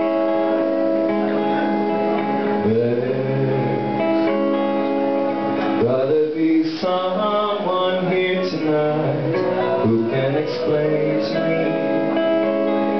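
Semi-hollow electric guitar playing sustained chords as a song opens. About three seconds in, a male voice joins, singing a melody over the chords.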